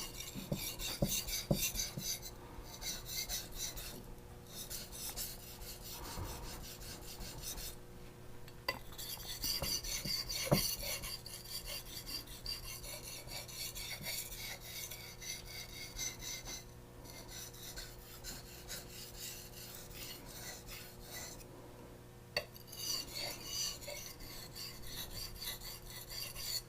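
Steel knife edge rasping back and forth on a wet medium-grit Japanese natural whetstone, in runs of strokes with short pauses between them, as the edge is ground until a burr rises.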